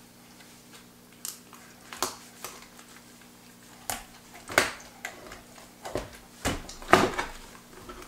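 Cleaver chopping through roast chicken and knocking on a wooden cutting board: about ten sharp, unevenly spaced knocks starting about a second in, the loudest in the second half.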